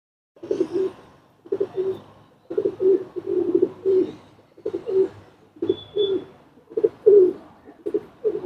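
Domestic pigeons cooing, a steady string of low coos about one a second.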